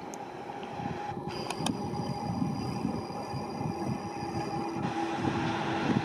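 Bombardier TRAXX class 187 electric locomotive running light along the track, its wheel-on-rail rumble growing louder as it approaches, with a steady high tone throughout. Two sharp clicks come about a second and a half in.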